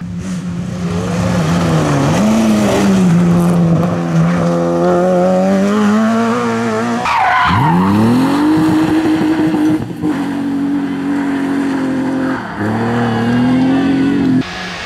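Rally car engine at high revs under load, its pitch holding, dipping and climbing again several times, with a sharp drop about halfway through followed by a long rise. Tyre and loose-surface noise runs underneath.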